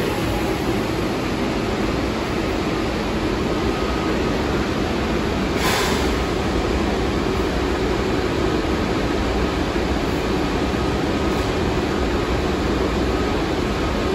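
R62A subway car standing at a station platform, its air conditioning and on-board equipment running with a steady hum and rush of air. A short hiss about six seconds in.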